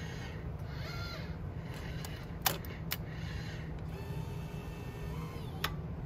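Robotic vial gripper of a Biotage Initiator+ microwave synthesizer whirring in two short motor moves, about a second in and again around four seconds in, with a few sharp clicks as it grips and handles the vial. A steady low hum runs underneath.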